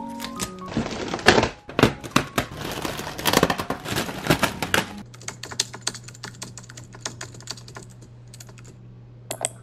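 Foil party balloons crinkling and crackling as they are handled and pulled down from a wall: a dense run of crackles for about five seconds, then only scattered faint clicks over a low steady hum.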